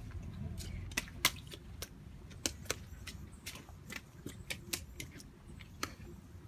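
A toddler's rubber rain boots stepping and splashing in a shallow puddle: an irregular run of light slaps and clicks, a few each second.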